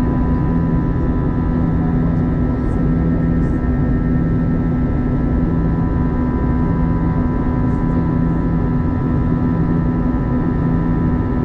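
Steady cabin drone of an Airbus A321-211 in flight: its CFM56 turbofan engines and the rush of air past the fuselage, with several fixed low and mid hums running unchanged through it.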